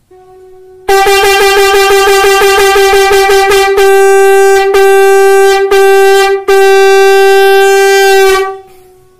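Conch shell (shankh) blown on one steady pitch in the tutari pattern. It opens with a fast run of short tongued notes, about seven a second, then gives three longer notes with brief breaks, then one long held note that stops about eight and a half seconds in.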